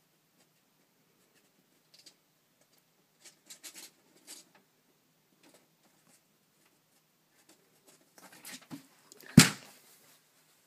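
A hairless cat's claws scrabbling and rustling as it clambers on a mirror frame, with a few faint ticks and knocks. About nine seconds in comes a burst of scrabbling and then a single loud thud.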